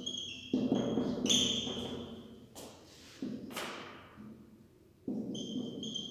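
Marker writing on a whiteboard: short, high squeaks from the pen tip and dull knocks from the board come in three spells of strokes, with a couple of quick scratchy swipes between them.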